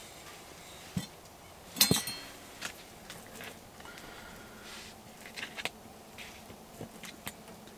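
Light clicks and clinks of an eating utensil against a plate as pancakes and eggs are eaten, with a louder clatter about two seconds in.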